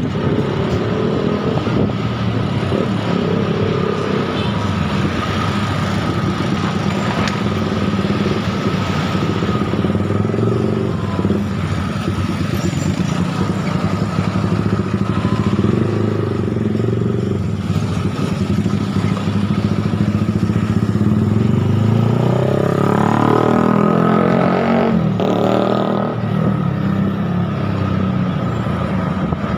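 Motorcycle engine running while riding along a busy street, with wind and traffic noise. About three-quarters of the way in, an engine note rises and falls as the motorcycle speeds up.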